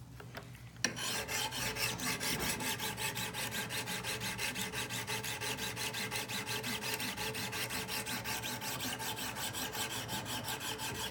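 Coarse 200-grit diamond stone of a Wicked Edge sharpener scrubbing along a steel knife edge in quick, even back-and-forth strokes, starting about a second in. One side of the blade is being ground to raise a burr.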